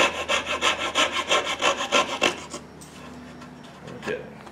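Coping saw cutting a wooden knife-handle blank in quick back-and-forth strokes, about four to five a second, stopping about two and a half seconds in; a light knock near the end. The handle is being rough-cut to its marked outline.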